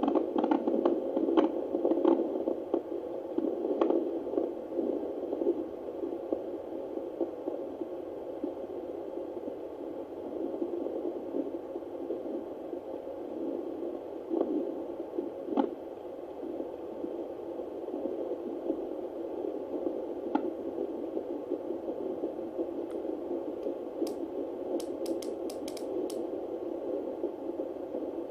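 Home fetal Doppler monitor hissing with static as the probe is moved over the lower belly, with scraping clicks from the probe. In the later part a faint early fetal heartbeat comes through the hiss, found at eight weeks, before the monitor can read its rate.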